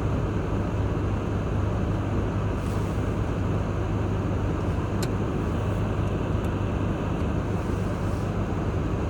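A car on the move: steady engine and road noise with a low hum, unchanging throughout, and a few faint ticks.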